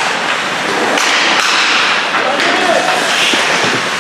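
Ice hockey play on a rink: skate blades scraping the ice and sticks clacking on the puck, with a shouted call about two and a half seconds in.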